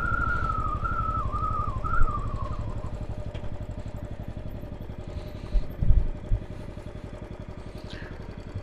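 Royal Enfield Classic 500's single-cylinder engine running with its steady thumping beat as the motorcycle slows, getting gradually quieter. A high whine slides down in pitch and fades out in the first three seconds, and a few low knocks come about six seconds in.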